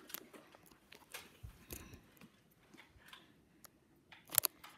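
Faint rustling and scattered light clicks from the camera being handled and set down against a blanket, with a quick burst of sharp clicks near the end.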